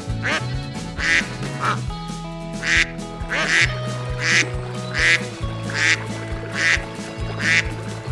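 Duck quacks repeated at an even pace, a little more than one a second, over background music.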